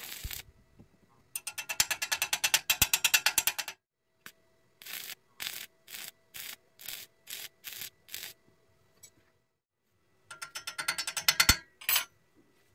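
Stick-welding arc on steel square tube crackling in bursts: a long run of rapid crackle, then about eight short bursts roughly half a second apart, then another rapid run of crackle near the end.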